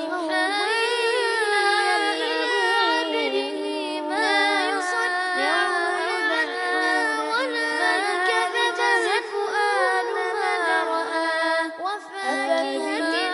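A voice chanting melodically, holding long wavering notes with ornamented turns, over steady sustained lower tones.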